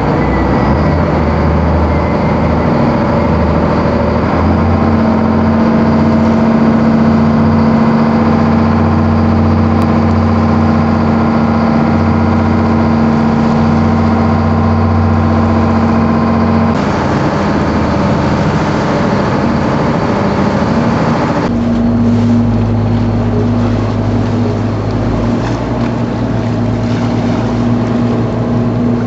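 Boat engine running steadily, a loud low drone with a constant hum, over a wash of water and wind noise. The engine note shifts abruptly twice partway through.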